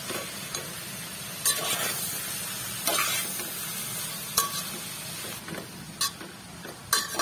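A spatula stirring boiled rice into cooked vegetables in a metal pot over the heat, with a steady sizzle and a sharp scrape or knock of the spatula on the pot about every one and a half seconds.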